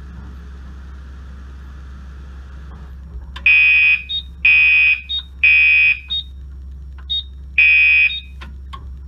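Fire alarm sounder going off about three seconds in: three loud beeps about a second apart, a pause, then a fourth beep before it stops, in the three-pulse temporal evacuation pattern. This is the sign that the smoke test has put the conventional fire alarm panel into alarm.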